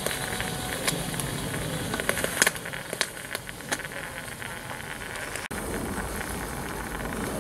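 Roundhouse 'Lady Anne' live steam model locomotive standing in steam: a steady hiss, with irregular sharp clicks and spits through the first few seconds.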